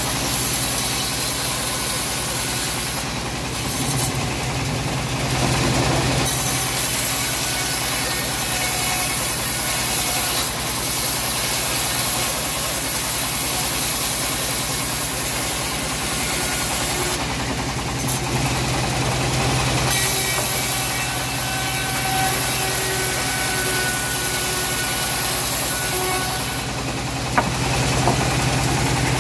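Homemade bandsaw mill running steadily while its blade rips a teak beam lengthwise into planks: a constant machine drone with a hiss above it. There is a single sharp knock near the end.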